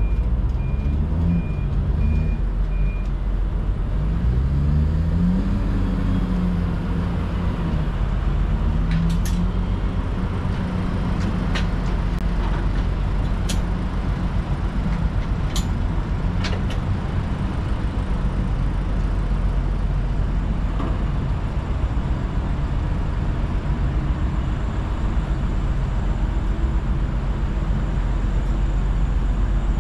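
Road traffic: motor vehicle engines running steadily, their pitch rising and falling in the first half. A short run of high beeps comes in the first few seconds, and a few sharp clicks come around the middle.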